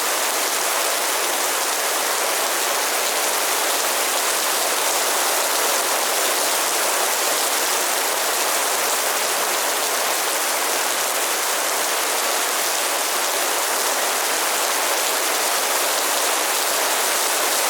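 Heavy downpour of rain: a steady, dense hiss of rain falling on surfaces, even and unbroken throughout.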